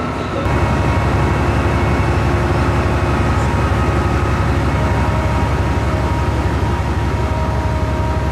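SBB Am 843 diesel-hydraulic shunting locomotive running close by as it hauls a train of track maintenance machines: a loud, rapid low engine throb with several steady whining tones over it, which sets in sharply about half a second in.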